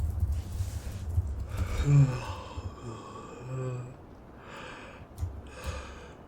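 Computer keyboard typing for about the first two seconds, then a man's long voiced sigh and two audible breaths out.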